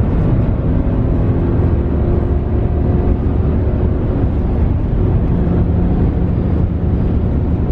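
Steady engine and road noise of a vehicle under way, heard from inside the cabin, heaviest in the low end with a faint engine hum over it.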